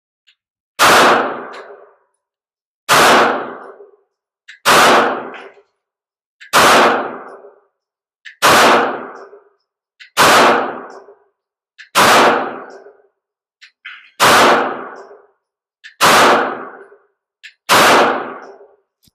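Canik TP9DA 9mm pistol fired ten times at a slow, steady pace, about one shot every two seconds, each shot followed by about a second of echo dying away.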